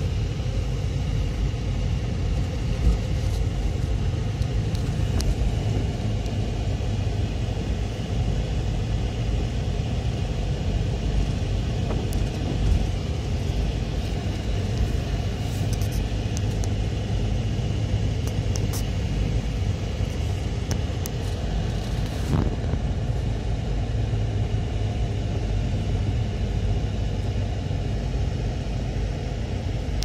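Car driving slowly over a snow-covered street, heard from inside the cabin: a steady low rumble of engine and tyres, with a few brief knocks.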